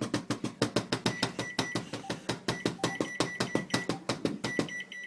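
Microwave keypad buttons pressed rapidly over and over, about seven or eight clicks a second, with short high beeps from the keypad sounding on and off through most of it.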